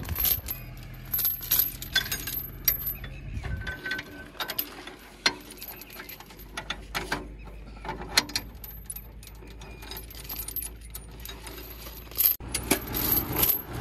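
Heavy steel tow chain clinking and rattling as it is handled, wrapped and hooked onto tractor hitches, with scattered short metal clanks. A low steady hum runs underneath in places.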